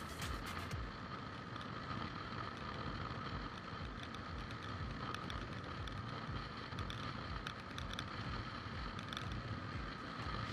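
Wind rumble and road or engine noise picked up by an action camera's built-in microphone while riding, with a steady high hum running through it.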